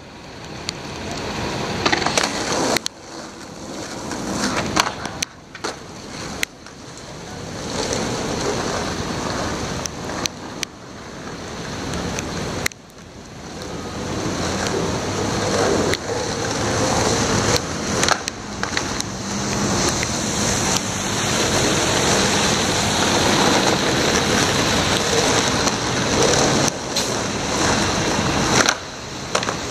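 Skateboard wheels rolling over wet asphalt, a hissing rumble that grows louder several times and drops off sharply, with a few sharp clacks of the board.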